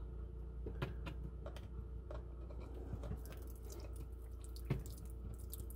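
Screwdriver tip prodding the pin of a plastic horizontal chicken-waterer nipple to free it of ice, giving a few scattered light clicks as water drips from the nipple. A faint steady hum sits underneath.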